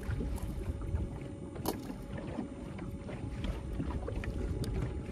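Steady wind buffeting the microphone on an open boat, with water noise around the hull underneath. A few sharp clicks stand out, the loudest about a second and a half in.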